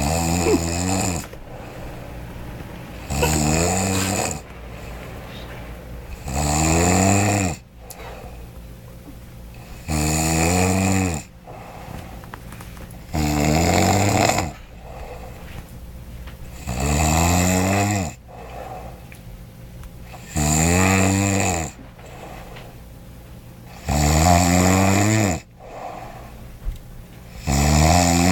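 A sleeping man snoring loudly, a long rattling snore on each breath in, about every three and a half seconds, each one dropping in pitch as it ends.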